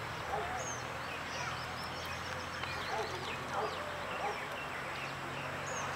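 Many birds chirping and calling over one another in quick short notes, with a steady low hum underneath.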